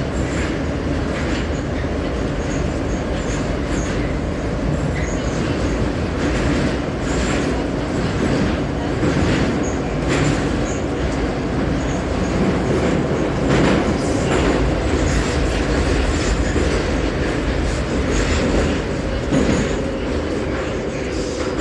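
81-717.5M metro car running through a tunnel, heard from inside the car: a loud, steady rumble with wheels clacking irregularly over the rail joints.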